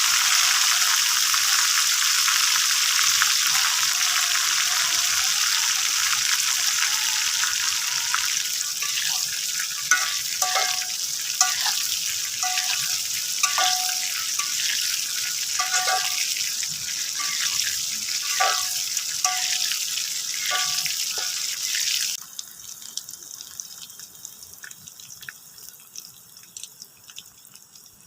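Food sizzling loudly in a frying pan or wok, with a metal spatula clinking against the pan at irregular intervals from about a third of the way in. The sizzle cuts off suddenly near the end, leaving only faint clicks.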